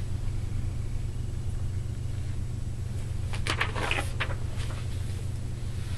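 Steady low room hum, with a few brief soft rustling noises about three and a half seconds in.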